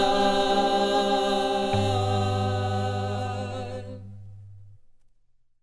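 Vocal group holding the final chord of a country gospel song, a low bass note joining a little under two seconds in, then the chord fades out to silence just before the end.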